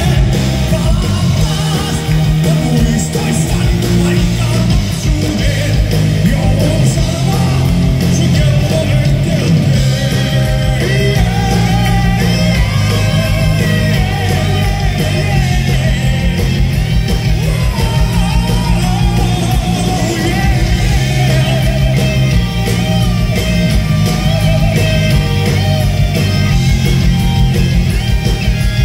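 A live heavy metal band playing a Christmas song through a loud PA, with distorted electric guitars, heavy bass and drums, and a singer. The sound is that of a hall heard from within the audience.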